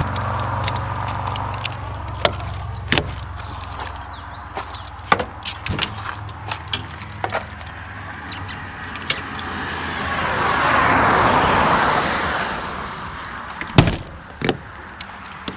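A car passes on the road, its tyre and engine noise swelling and then fading over a couple of seconds past the middle, while a low engine hum dies away at the start. Scattered clicks and light knocks run throughout, with one sharp knock near the end.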